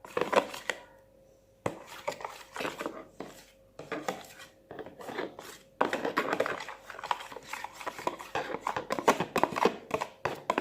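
A utensil stirring slime glue in a bowl, clicking and scraping irregularly against the sides.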